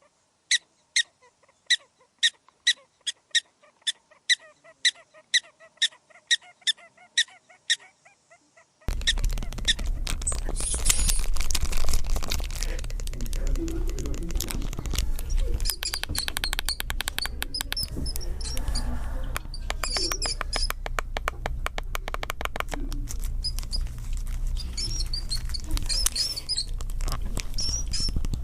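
A small animal gives short, high chirps, evenly repeated about twice a second. After about nine seconds there is an abrupt switch to a noisier recording, with scattered high bird chirps over a steady low rumble and clicks.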